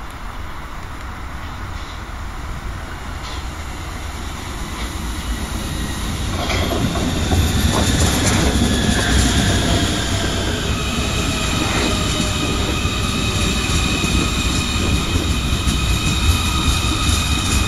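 Munich U-Bahn C2 subway train arriving and running past. The rumble of its wheels on the rails grows louder through the first half. Over the second half several high, steady whining tones join the rumble.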